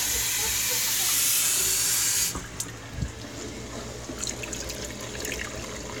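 Kitchen faucet running into a plastic cup: a steady rush of water that stops about two seconds in. Then quieter splashing and small knocks as the water is poured into the humidifier's base.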